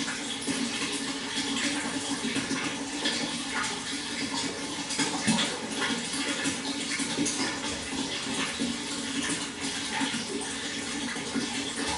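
Water flowing steadily, with continuous rushing and irregular small splashes and gurgles.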